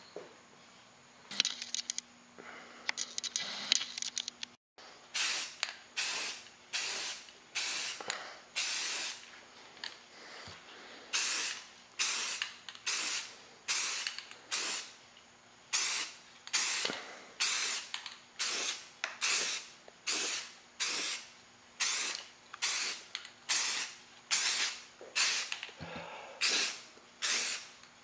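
Airbrush spraying paint in short trigger bursts of hiss, one after another about one every three-quarters of a second, each starting sharply and fading.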